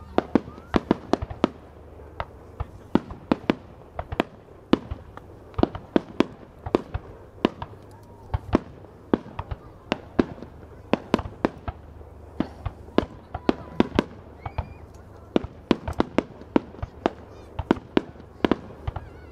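Aerial firework shells bursting in rapid, irregular succession, several sharp bangs a second with no pause.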